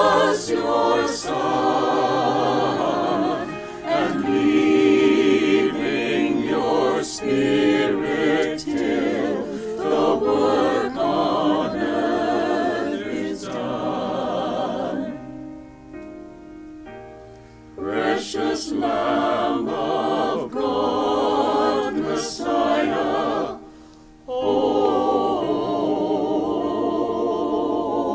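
Mixed choir of men's and women's voices singing a cappella in harmony, with no instruments. The singing softens to a quieter held passage about halfway through, then returns at full voice after a short break.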